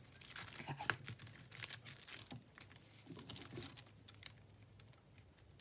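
Quiet rustling and crinkling of paper and washi tape as hands smooth a strip of tape down along a join between book-page panels, with scattered light clicks.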